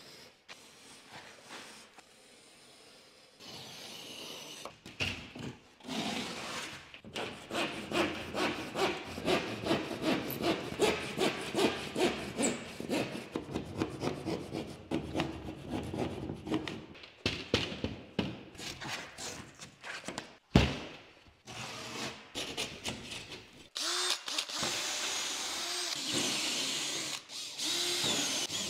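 Rhythmic saw strokes cutting through plasterboard, about two a second. Then a single sharp knock. Near the end a Makita cordless drill with a hole saw runs steadily, boring a hole through the board.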